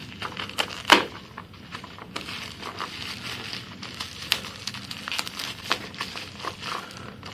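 Packaging being torn open and handled by hand: crackling, crinkling noise with many small clicks and a sharp snap about a second in.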